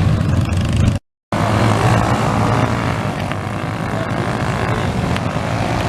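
Small motorcycle engines running steadily, with a brief total dropout about a second in.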